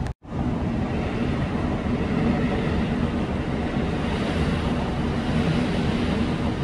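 Local diesel train running steadily along the line: a low engine drone over continuous rail and wheel noise, with a brief cut-out just after the start.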